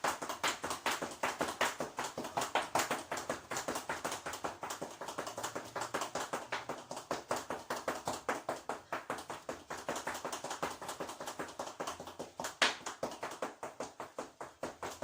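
A rapid, even run of sharp clicks or taps, about five a second, with one louder click near the end.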